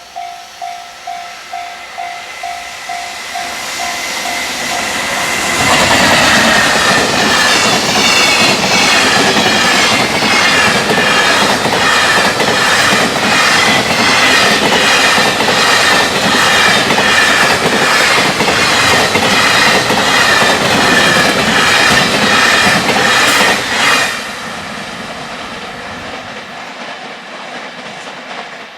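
Level-crossing warning bell pulsing about twice a second, then a freight train passes at high speed from about five seconds in. Its wheels clack in a steady rhythm over the rail joints until the last wagon clears about 24 seconds in, when the sound drops off sharply to a fading rumble.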